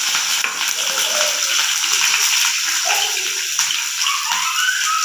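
Sliced onions and green chillies sizzling in hot oil with roasted cumin seeds in a pan, a steady hiss.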